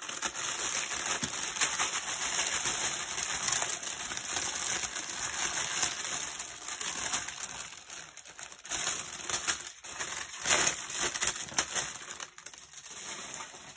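Thin plastic bags crinkling as small bags of diamond painting drills are handled and pushed into a larger clear plastic bag, with scattered sharp clicks; the crinkling turns choppier, in short bursts with pauses, in the second half.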